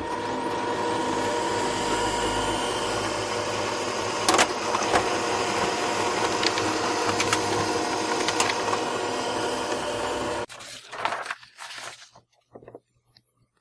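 Brother printer running a print job: its motor and paper-feed rollers run steadily for about ten seconds, with a few clicks along the way, then stop suddenly. Softer rustles of paper being handled follow.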